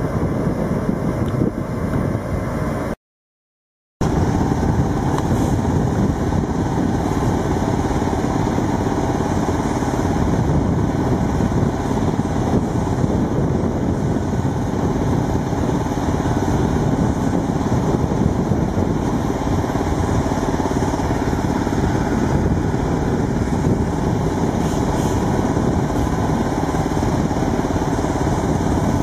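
Heavy machinery engine running steadily, with a complete break of about a second roughly three seconds in.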